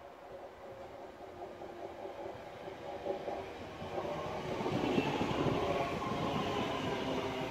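Class 323 electric multiple unit approaching on the rails and running past close by. It grows steadily louder and is loudest as it comes alongside, about five seconds in.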